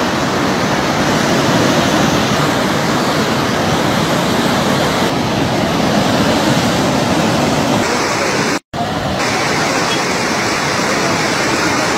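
Muddy floodwater rushing past in a fast torrent: a loud, steady wash of noise. It is broken once by a sudden, very short dropout about eight and a half seconds in.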